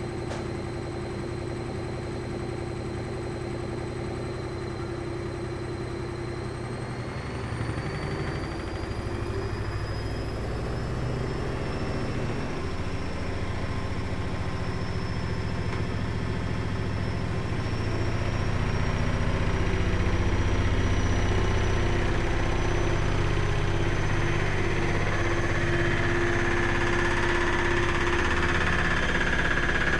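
Washing machine speeding up into its spin cycle: the motor whine rises in pitch from about six seconds in, and the low rumble of the drum grows louder, stepping up again about eighteen seconds in. The machine is vibrating hard enough to shake the whole floor.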